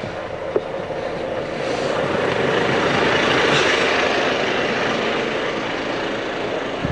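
A truck's cab, with a rushing sound that swells up to a peak midway and then eases off. A light click comes about half a second in.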